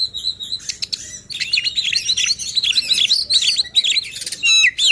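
Oriental magpie-robin singing a fast, varied string of chirps and whistles: a brief whistle, then a dense, unbroken run of notes from about half a second in. This is the agitated, insistent song that kacer keepers use to provoke rival magpie-robins into singing.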